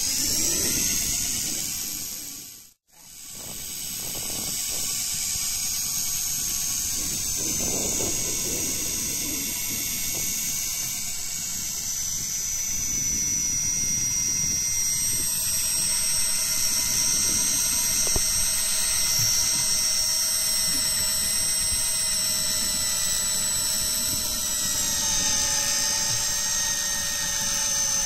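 Miya Epoch CX-4NP electric fishing reel's motor whining steadily as it winds line in under load from deep water. The whine cuts out for a moment about three seconds in.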